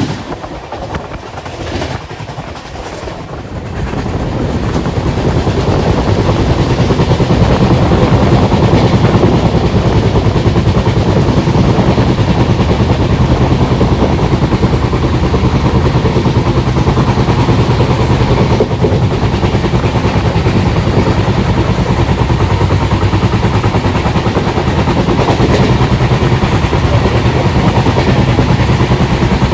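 Train running at speed, hauled by twin EMD diesel locomotives, with a steady low engine drone under the running noise. The sound grows louder about four seconds in and then holds steady.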